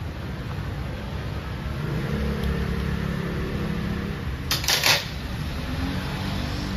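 Steady low machine hum, with a brief clatter of metal hand tools about two-thirds of the way through.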